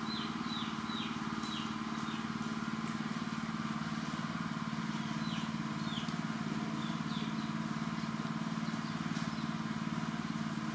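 A steady machine hum, like a running engine or motor, holding one pitch throughout. Runs of short high chirps that fall in pitch come near the start and again around the middle.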